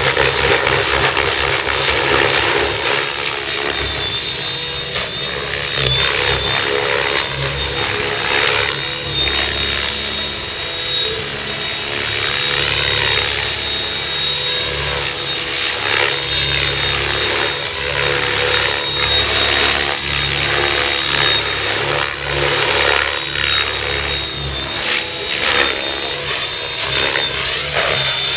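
Mikado LOGO 600SE electric RC helicopter flying aerobatics: a high motor whine under the rush of the rotor blades, swelling and fading as the blades load up through the manoeuvres.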